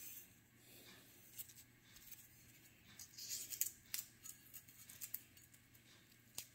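Faint handling noise from a copper-pipe J-pole antenna being turned in the hands: soft rustles and a few light clicks against a quiet room, most of them a few seconds in.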